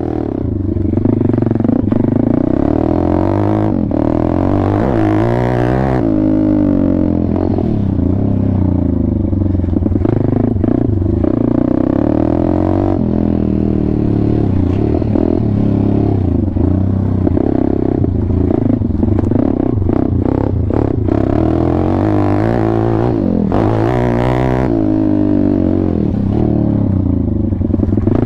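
WPB Beast 190 pit bike's 190cc engine under way, with the revs climbing and dropping again and again as the throttle is worked. The engine comes up quickly at the start as the bike pulls away.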